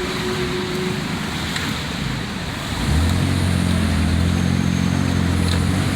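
A car driving, heard from inside the cabin with a window down: tyre and wind noise. About halfway through, a steady low engine hum comes up and holds.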